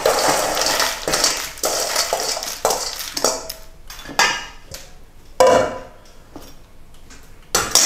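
Fried pita croutons tipped from a small metal bowl into a stainless-steel salad bowl, a dense rattling pour for about the first second and a half. Then a metal spoon tosses the salad, scraping and clinking against the bowl in separate strokes.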